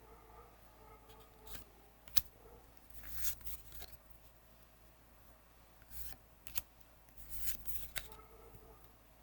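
Magic: The Gathering cards being handled and slid across one another: intermittent brief swishes, with sharp clicks about two, six and a half, and eight seconds in.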